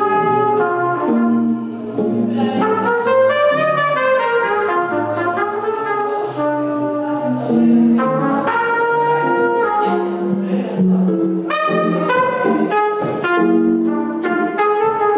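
A trumpet playing a melody of held and moving notes, with lower notes sounding beneath it.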